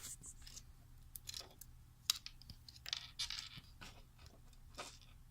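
Jumper wires being handled and pushed into a breadboard: irregular small clicks and scratches, over a faint steady low hum.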